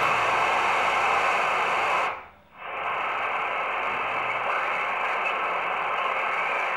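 Soviet R-250 military shortwave receiver hissing with static through its loudspeaker, with weak reception on a plain wire antenna. A little over two seconds in the static drops out for about half a second, then comes back slightly quieter as the set is worked.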